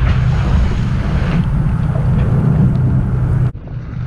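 Steady low drone of a fishing boat's engine, with wind rushing over the microphone and waves. About three and a half seconds in the sound drops away abruptly, then comes back more quietly.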